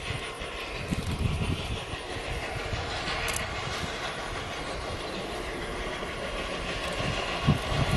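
Steam tank locomotive running toward the listener, a steady noise of its working on the rails. A brief high hiss comes about three seconds in, and a few low thumps near the end.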